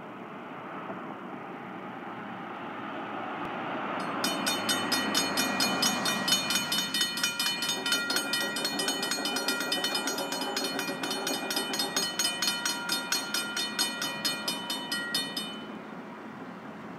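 Railroad grade-crossing bell ringing with rapid, even strikes while the crossing gates come down; it stops abruptly near the end, once the gates are lowered. Road noise from a passing car swells beneath it at the start.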